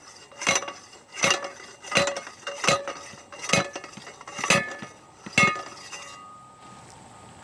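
Hand post rammer driving an insulated fibreglass fence line post into the ground: seven ringing metallic strikes, about one every 0.8 seconds, that stop about six seconds in.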